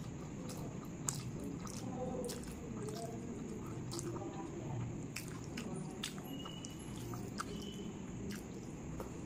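Wet chewing of rice and chicken curry eaten by hand, with irregular sharp mouth smacks and clicks, and soft squishing as fingers gather rice.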